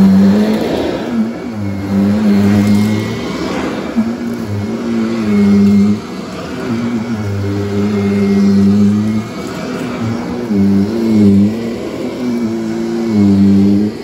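Upright vacuum cleaner running on carpet and pushed back and forth: a steady motor hum with a faint high whine, its pitch dipping briefly and its loudness rising and falling with each pass.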